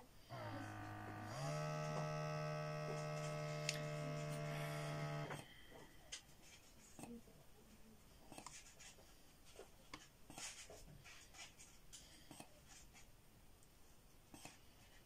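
Portable 24-hour blood pressure monitor's pump inflating the cuff: a steady electric hum that steps up in pitch and loudness after about a second, then runs evenly until it stops about five seconds in. Only faint clicks follow.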